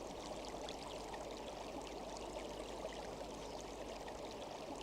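Steady running-water ambience of a stream, low in level and unchanging.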